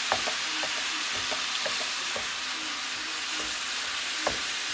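Ground beef sizzling as it browns in a frying pan, with light clicks and scrapes of a meat masher breaking it up against the pan; one louder knock about four seconds in.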